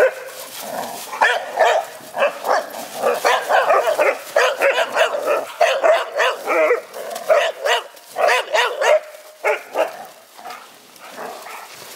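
Dogs barking and yipping in rough play over a stick. The short calls come thick and fast, then ease off about ten seconds in.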